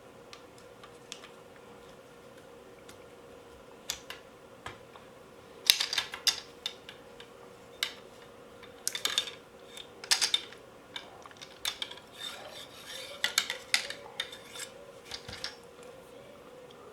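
Metal parts and tools of an airsoft AK being taken apart: irregular clicks, clinks and scraping rattles, a few scattered at first, then a busy run of handling from about six seconds in.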